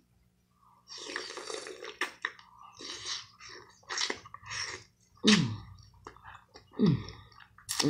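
Close-up chewing of a green-lip mussel: wet, smacking mouth sounds in short bursts, with two brief falling hums of the voice near the end.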